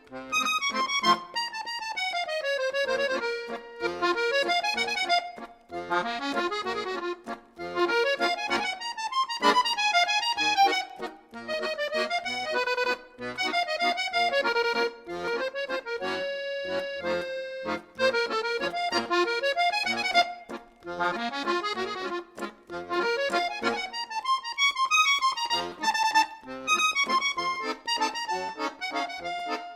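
Lively accordion tune with a steady bass-note beat, in a traditional folk style.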